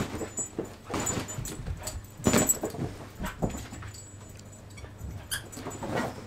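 Husky puppy at play: irregular scuffles and short knocks, with a few brief high sounds about five seconds in.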